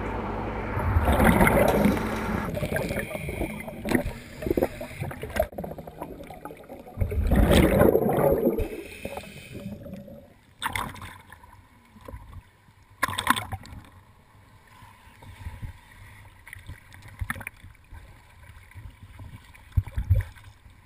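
Scuba regulator exhaust bubbles rumbling and gurgling underwater, two loud exhalations about six seconds apart, followed by quieter underwater noise with a few sharp knocks.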